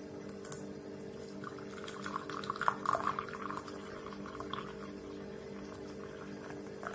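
A steady low hum throughout, with a short run of liquid sound, like pouring or running water, from about one and a half to three and a half seconds in.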